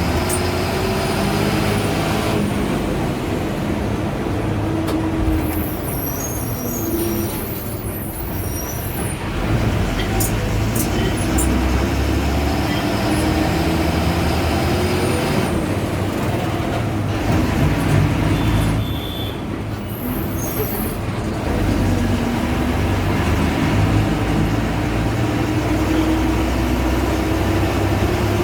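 Ashok Leyland BS4 bus's diesel engine running under way, its pitch climbing as the bus accelerates and dropping back at gear changes, about a third of the way in and again about two-thirds in. Two short hisses of compressed air come from the air system.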